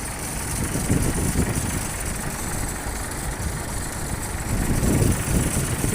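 Engine-driven rice threshing machine (mini combine) running: a steady engine drone under a dense rushing noise, growing louder about five seconds in.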